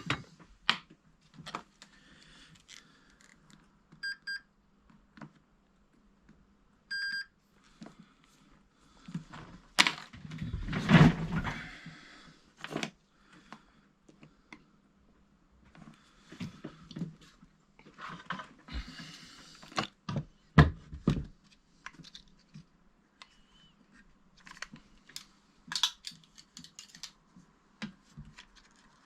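Tools and parts being handled at a workbench during a heated-grip repair: scattered clicks and knocks, two short electronic beeps about four and seven seconds in, and a louder rustling scrape around eleven seconds.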